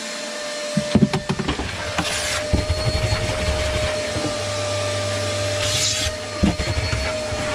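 Canister vacuum cleaner running with a steady whine as its nozzle is worked over cabin carpet, with a few knocks and clacks from the wand and hose about a second in and again near the end.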